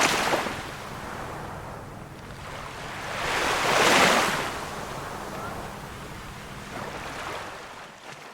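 Small waves of a calm sea washing in, one swell of surf after another: a wash at the start, a louder one about four seconds in, and a smaller one near the end.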